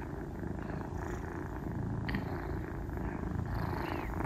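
A litter of nursing kittens purring together: a steady, low, unbroken purr.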